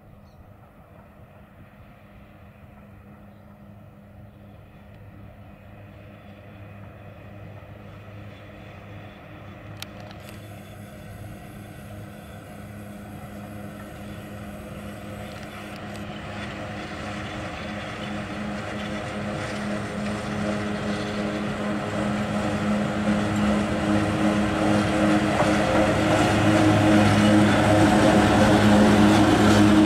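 ET22 electric freight locomotive hauling a train of cement tank wagons, approaching and passing close by. Its steady hum grows steadily louder throughout, and rolling train noise builds as the locomotive comes alongside near the end.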